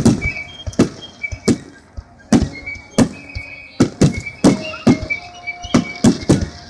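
Aerial fireworks shells bursting in quick succession, about two sharp booms a second, each leaving a short ringing echo.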